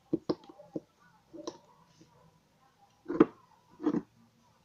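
Small plastic cup of slime being handled on a table: a quick run of light clicks, then two louder knocks near the end.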